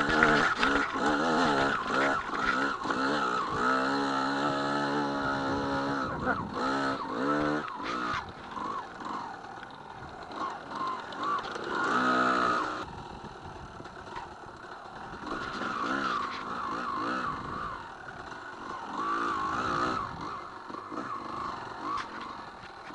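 Dirt bike engine revving up and down with the throttle, loud and busy for the first several seconds, a sharp rev about twelve seconds in, then running lower and more unevenly.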